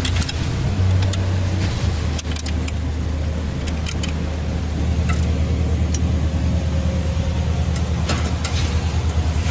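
Occasional metallic clinks of a combination wrench working the bolts on the front cross brace, over a steady low rumble.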